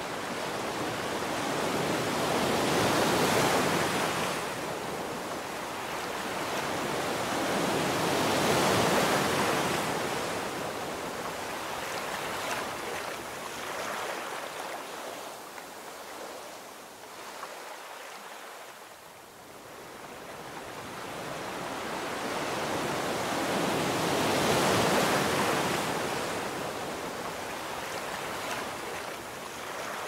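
Ocean waves breaking and washing ashore, the hiss of surf swelling and fading in slow surges. Three big surges stand out, near the start, about a third of the way in and late on, with a quieter lull in between.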